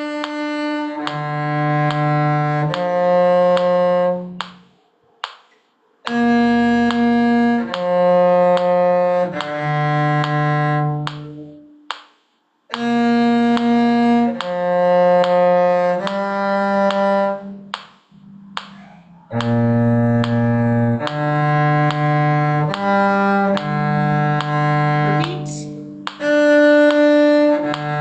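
A cello playing a lively tune in separate bowed notes, one line at a time. The phrases break off into brief pauses every few seconds.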